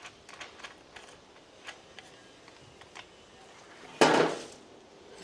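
Light clicks and taps of an angle grinder being handled while a sanding disc is fitted to it. About four seconds in there is one loud, short rasping burst that fades within about half a second.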